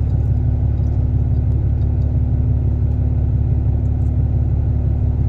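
A steady low rumble with a constant hum, even throughout.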